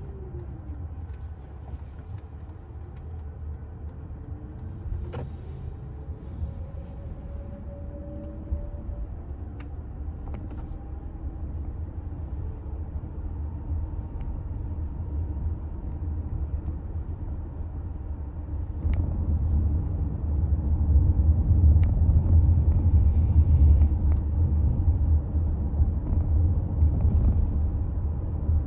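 Toyota Alphard hybrid being driven: a steady low rumble of road and running noise, with a faint whine that glides up and down in pitch during the first third. The rumble grows clearly louder about two-thirds of the way through.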